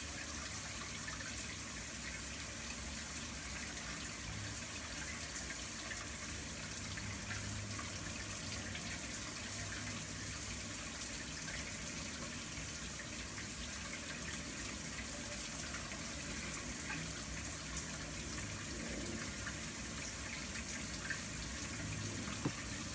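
Shower water running steadily, a constant even hiss of spray.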